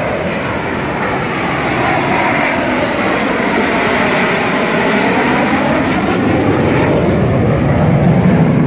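Dassault Rafale fighter jet passing low overhead on its landing approach, its twin turbofan engines making a loud jet rumble. The tone sweeps and shifts as the jet goes by, and the sound grows louder near the end.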